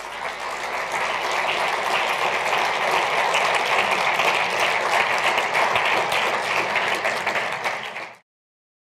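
Audience applauding, swelling in the first second and then holding steady, before cutting off abruptly near the end.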